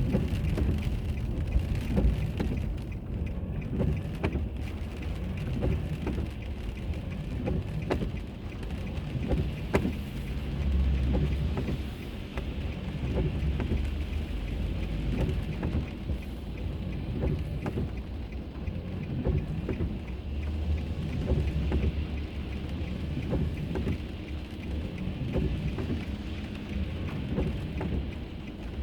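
Road noise heard from inside a car being driven: a low, uneven rumble of tyres and engine, with scattered light clicks and knocks throughout.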